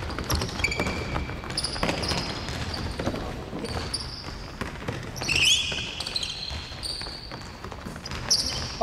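Basketball bouncing on a hardwood gym floor, with sneakers squeaking and footsteps thudding as players run and cut. The squeaks come as many short, high chirps, some sliding upward, and are loudest about halfway through and near the end.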